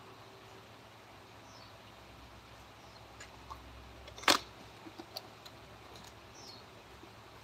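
A single sharp knock about four seconds in, over a quiet background with a few faint ticks and several faint, short, high chirps.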